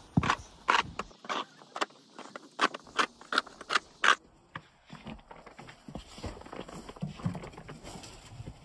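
Snow shovel scooping and scraping through fresh snow: a quick run of sharp, crunchy scrapes for about the first four seconds, then softer scraping with small clicks.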